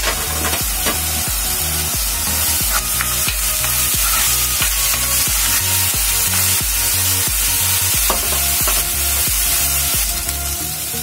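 Onion, ginger, green chilli and garlic paste sizzling as it fries in hot oil in a kadhai, being stirred, with a few short scraping strokes. A steady beat of background music plays underneath.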